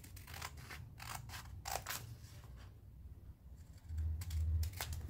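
Scissors snipping through the template as it is cut out: a run of short snips, a pause, then more snips, with dull handling bumps near the end.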